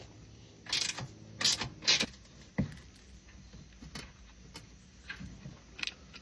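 Hand tools working the bumper's mounting bolts: three short metallic rattles in the first two seconds, a single knock, then a few light clicks.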